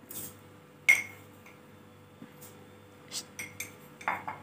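Glass clinks and taps as sugar is spooned into the portable blender bottle's glass jar: one sharp, briefly ringing clink about a second in, then a run of lighter taps and clicks near the end. The blender motor is not running.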